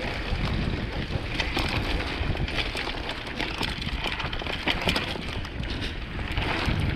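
Wind buffeting the microphone of a mountain bike rider's camera during a ride, with many short clicks and rattles from the bike running over a rough dirt trail.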